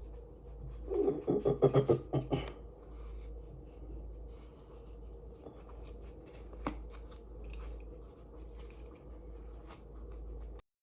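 Hands working on a wig: a quick run of clicking and rubbing about a second in, then scattered faint clicks and rustles over a low steady hum.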